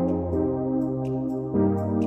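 Background music: soft keyboard and synthesizer chords held and changing about every second and a half, with a light ticking beat.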